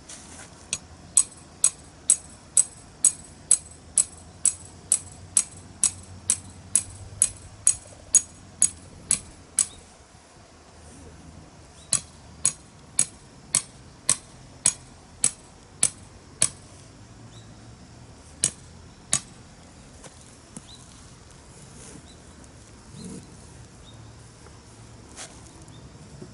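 Hammer blows on metal in a fast, even rhythm of about two a second, each with a bright ring: a run of about twenty strikes, a short pause, about ten more, then two last ones.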